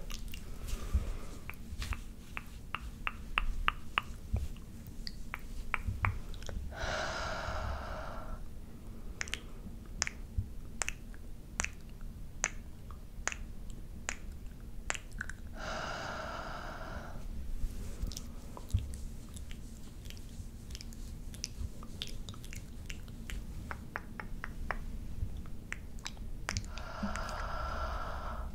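Close-miked wet mouth sounds from licking a camera lens: rapid tongue clicks and smacks. Three longer pitched sucking sounds of about a second and a half each come at roughly 7, 16 and 27 seconds in.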